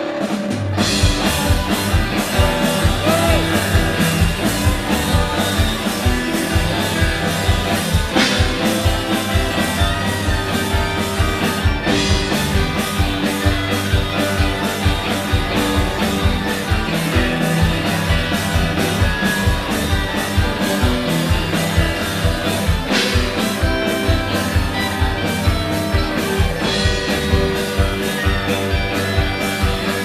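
Live rock band playing loudly: electric guitar, electric bass and drum kit. The full band comes in hard about half a second in, then holds a steady driving beat.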